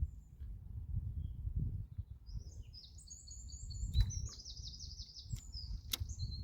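A small songbird singing a fast, twittering run of high chirps that starts about two seconds in and carries on to the end. Under it is a steady low rumble, and two sharp clicks come about two seconds apart.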